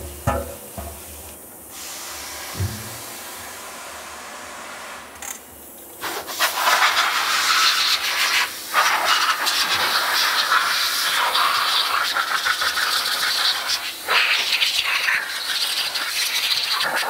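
Pistol-grip spray nozzle spraying a freshly vapor-blasted aluminum part over a stainless steel sink. The spray is moderate for the first six seconds, then much louder, with short breaks about nine and fourteen seconds in, and it stops just at the end.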